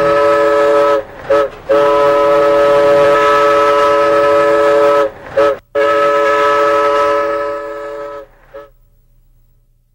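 Train whistle sounding a chord of several steady tones: three long blasts, each followed by a short toot, fading away near the end.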